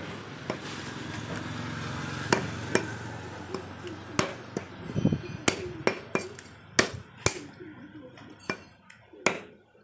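Large butcher's knife chopping rabbit meat and bone on a wooden stump block: about a dozen sharp chops, irregularly spaced, each a hard knock of blade into wood.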